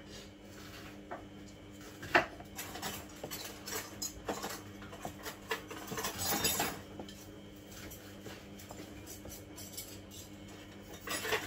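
Wooden spoon stirring in a mixing bowl, with scattered knocks and clinks against the bowl.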